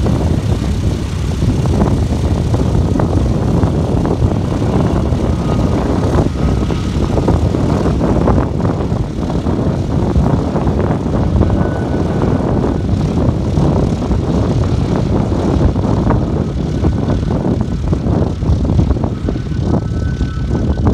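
The four radial piston engines of a B-17 Flying Fortress running loud and steady while the bomber taxis.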